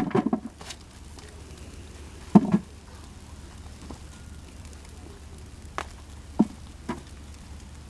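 Hands digging through loose container soil for sweet potatoes: scattered rustles and a few short knocks.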